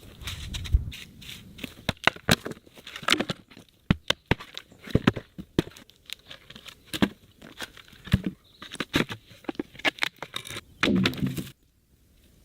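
Irregular sharp knocks and cracks of hand tools working wood, with tearing, splintering sounds between the strikes. A louder burst comes just before the sound cuts off suddenly near the end.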